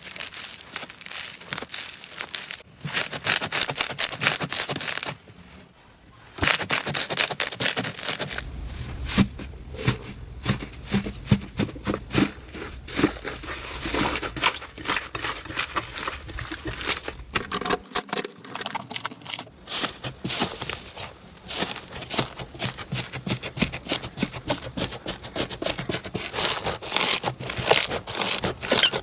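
Crunchy slime being squeezed and pressed: dense crackling and popping clicks, with a short lull about five seconds in and shifts in texture as one clip follows another.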